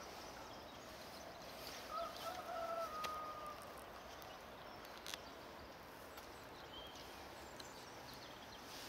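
A rooster crowing once, faintly: a single pitched call about two seconds in that lasts about a second and a half. A few light clicks follow.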